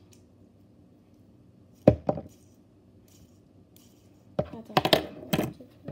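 Sharp knocks and clacks of small hard objects being handled: one loud knock about two seconds in, then a quick run of several near the end.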